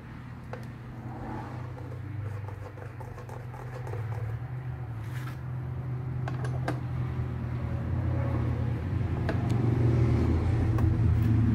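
A low, steady mechanical hum grows gradually louder throughout. Over it come a few sharp, light metallic clicks as a screwdriver works the centre screw of a motorcycle's chrome air cleaner cover.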